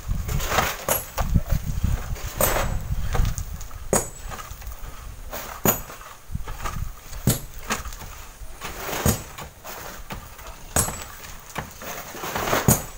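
Long bamboo poles knocking and scraping against the sandy cliff face as miners lever sand loose, one sharp knock every one and a half to two seconds. Wind buffets the microphone with a low rumble during the first few seconds.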